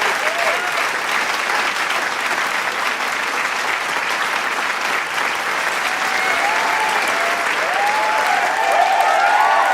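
Large crowd applauding with dense, steady clapping; from about six seconds in, voices whoop and cheer over it.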